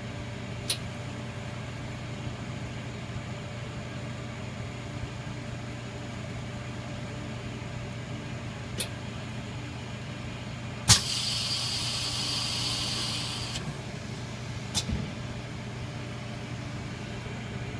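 Vacuum laminating machine for phone screens running its bonding cycle with a steady low hum and a few sharp clicks. About eleven seconds in, a loud click is followed by roughly two and a half seconds of hissing air as the chamber vents.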